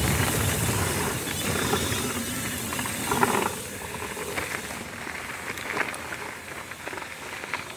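Mountain bike rolling down a dirt trail: steady tyre and ride noise with scattered clicks, louder for the first few seconds, then quieter.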